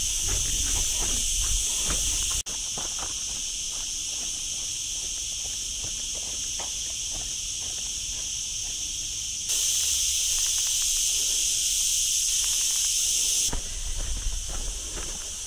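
Cicadas shrilling in a steady, high, continuous chorus, jumping louder for a few seconds past the middle, over faint footsteps on a dirt path.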